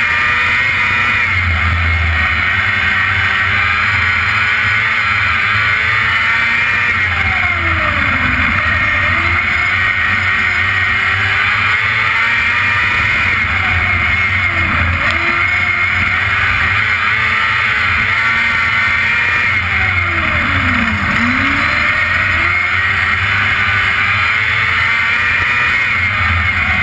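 Sprint car's V8 racing engine running hard on a dirt oval, heard from the cockpit with heavy wind rush. Its pitch dips sharply and climbs back about every six to seven seconds as the throttle is lifted and reapplied through the turns.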